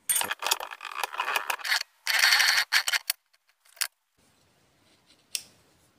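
Small pieces of cut sheet steel clinking and rattling as they are handled, with a short scraping burst about two seconds in; after about four seconds only a single click.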